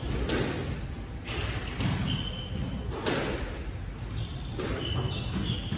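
Squash court between rallies: sneaker soles squeaking on the wooden floor, with a few scattered knocks from the squash ball and footsteps over a steady low hum of the hall. Short squeaks about two seconds in and again near the end.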